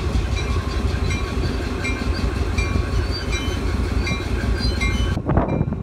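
Steady low rumble of a moving vehicle, with faint clicks and short squeaks recurring through it like a rail ride. About five seconds in it cuts to gusts of wind on the microphone.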